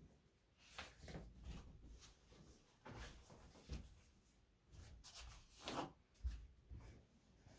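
Faint rustling and brushing of cloth as a sheet is smoothed over a floor massage mattress, with a few soft low thumps near the end.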